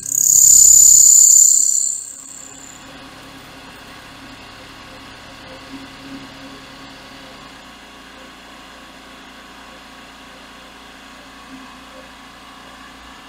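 CNC mill cutting aluminum with a 1/2-inch end mill, boring out a round hole. A loud high-pitched hiss for about the first two seconds gives way to a steady, quieter hum from the spindle and cutter.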